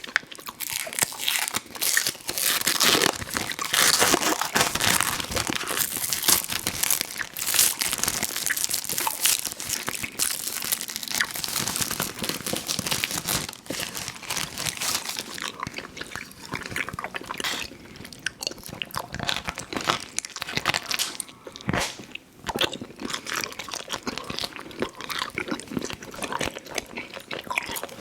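Close-miked chewing and biting of Fruit Roll-Ups fruit-leather candy: a dense run of crackling mouth sounds, busiest in the first half and thinning out after the midpoint.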